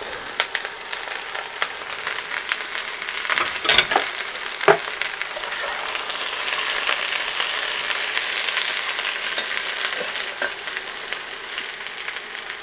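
Sliced zucchini and carrots sizzling in hot olive oil in a cast-iron pot as they are stirred, with a couple of sharp knocks about four and five seconds in.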